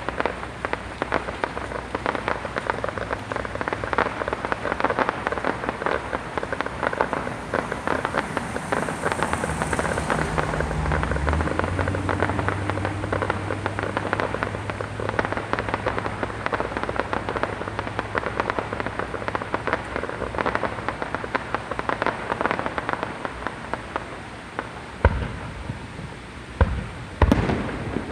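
Fireworks display: a dense, steady crackling for most of the time, then a few separate loud bangs near the end.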